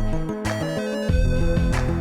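Outro music: an upbeat electronic tune with a stepping melody, bass line and drum hits.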